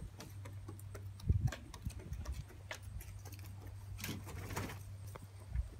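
Light scattered ticking of feet and claws on wooden deck boards, with a low thump just over a second in. About four seconds in, a brief rushing flutter of a mallard hen flapping her wings.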